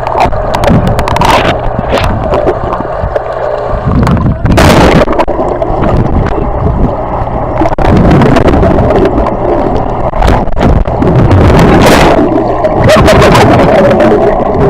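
Water rushing and splashing close to the microphone during a water-slide ride, with wind buffeting the microphone. Loud and churning, with sudden louder splashes about four seconds in and again near twelve seconds.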